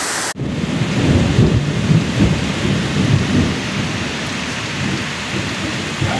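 Heavy downpour pouring steadily, with a low rumble that swells and fades over the first few seconds.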